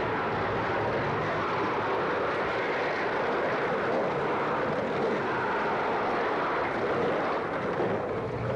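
Skateboard wheels rolling on pavement: a steady rushing roar.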